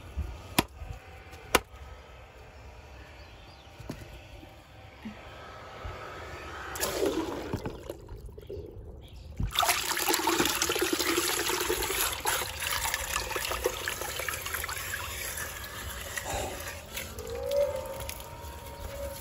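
A few sharp knocks, then running water splashing and pouring, growing much louder about halfway through and carrying on steadily.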